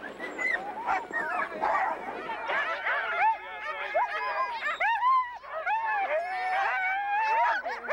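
A team of sled dogs yipping, whining and barking over one another, many short rising-and-falling calls without a break: the eager clamour of harnessed dogs at a race start.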